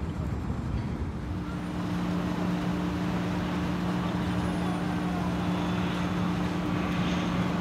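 Aircraft engines running at an airport: a steady rumble, with a steady low hum that comes in about a second in, and the sound growing slightly louder.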